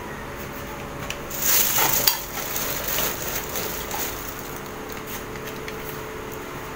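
Clattering, clicking and rustling of household items being handled, loudest from about one and a half to two seconds in, over the steady hum of a fan.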